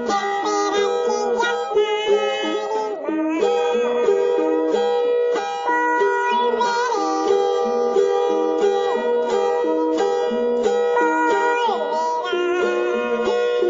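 Instrumental music: a repeating plucked-string accompaniment under a melody whose notes glide up and down.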